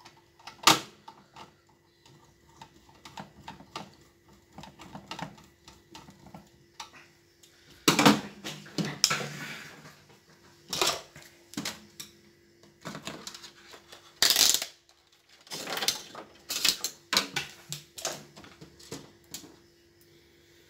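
Irregular metallic clicks, knocks and clatter of screws being fitted with a screwdriver into a TV's metal chassis, with louder clusters of knocks about a second in, around eight to nine seconds in and around fourteen seconds in.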